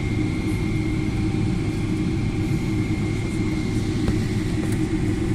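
Airliner's engines running on the ground with a steady low hum and a thin, steady high whine. A couple of faint clicks come near the end.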